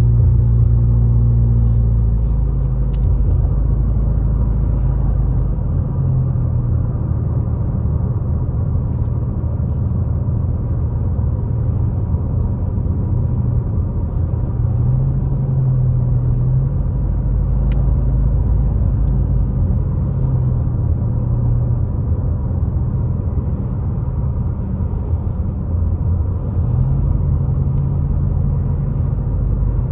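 Car cabin rumble while driving: steady low engine and tyre drone, swelling louder twice as the car speeds up or the road changes.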